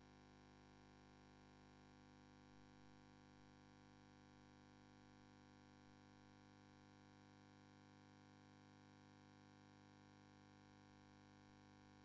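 Near silence: only a faint, steady hum while the recorded broadcast is paused.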